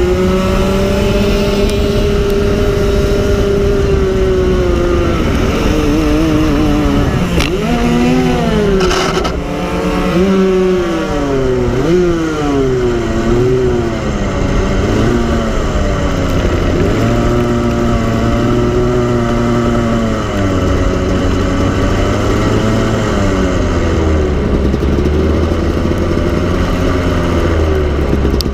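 Go-kart engine heard from on board during a race, its pitch rising and falling again and again as the kart accelerates and lifts off for corners. It holds a steady high note at first, drops about five seconds in, then swings up and down quickly several times before settling into longer rises and falls.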